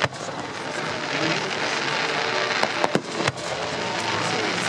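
Fireworks display: sharp bangs of shells launching and bursting, one right at the start and three more about two and a half to three and a half seconds in, the last the loudest, over a continuous crackling hiss of burning stars.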